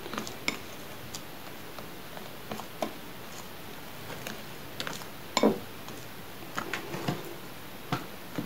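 Small plastic spoon stirring a thick, wet paste in a ceramic plate: scattered light clicks and scrapes against the plate, the loudest about five and a half seconds in.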